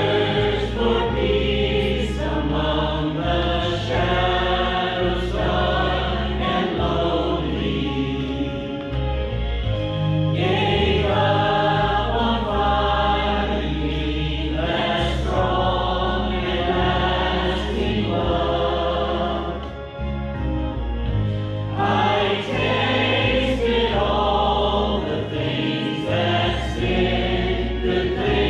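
A small church choir singing a hymn, with sustained low accompaniment notes underneath; the singing dips briefly between phrases about two-thirds of the way through.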